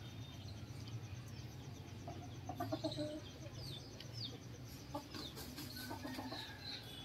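Chickens giving a few quiet clucks, with small birds chirping high in the background.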